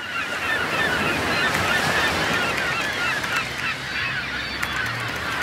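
Seabird colony: many gulls calling at once in a dense, continuous chorus of short overlapping cries.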